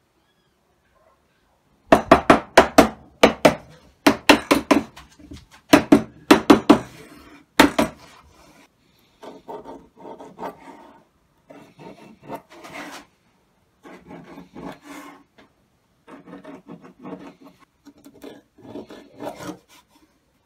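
Pine boards knocked and shifted together on a workbench in a run of sharp wooden clatter, then a pencil scratching marking lines on pine along a square in short repeated strokes.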